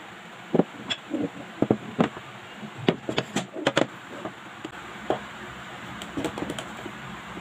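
Flat pieces of a wooden desktop stand knocking and clacking against each other and the table as they are handled and slotted together. A quick run of sharp knocks comes in the first four seconds, then only a few scattered ones.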